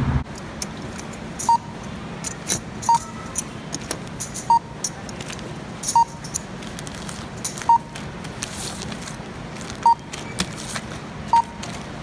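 Checkout barcode scanner beeping once as each item is scanned: seven short, high beeps, one every second and a half to two seconds. Light clicks and rustling come from the metal door hinges and bagged screws being handled over it.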